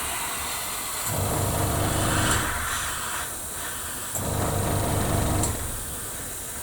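Small airbrush compressor running with a constant hiss of air. Its low motor hum swells and drops back in spells of about a second and a half as the airbrush is sprayed in short passes.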